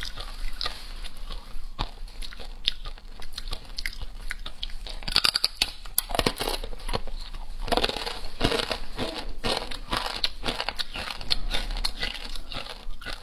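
Crispy fried fish bones being bitten and chewed close to a clip-on microphone: a long run of dry, crackling crunches, thickest in the second half.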